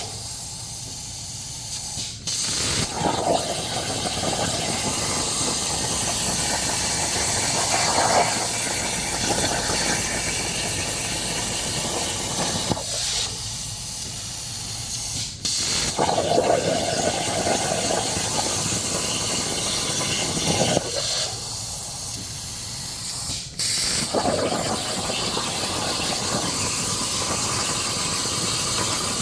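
Plasma cutter arc hissing steadily as it cuts through a steel saw blade, stopping briefly three times and starting again.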